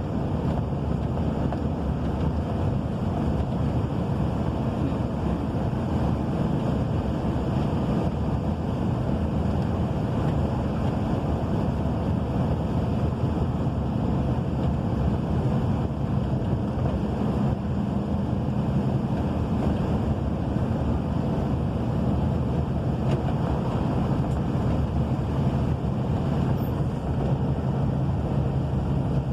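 Steady rain, heard as a continuous low rushing noise with no breaks.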